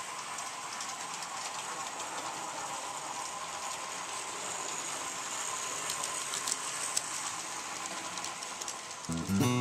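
HO scale model trains rolling past on the layout's track: a steady whirr of motors and wheels on rail, with a few light clicks. Acoustic guitar music starts near the end.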